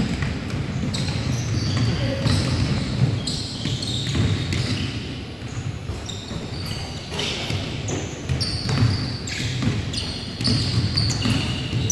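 Basketball game on a hardwood gym floor: sneakers squeaking in short high chirps, the ball bouncing and players' voices in the large hall.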